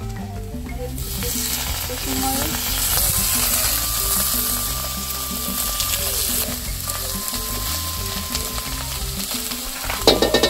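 Small dried omena fish frying in a metal wok as cooking fat goes in: a steady sizzle starts about a second in. Near the end a wooden spoon scrapes and clatters against the pan while stirring.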